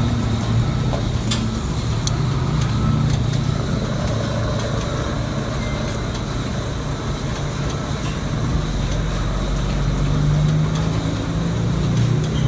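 Steady low motor-vehicle engine hum, running evenly with no change in pitch.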